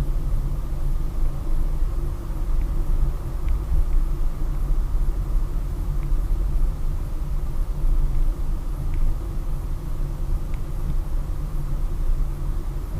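Steady low rumble of a car, as heard by a dashboard camera inside it, with a few faint light ticks now and then.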